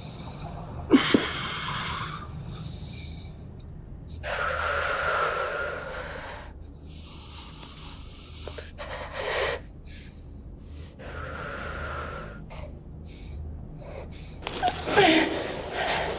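A woman breathing hard and raggedly in pained, wheezing gasps, about five long breaths a few seconds apart, over a low steady hum. A sharp click sounds about a second in.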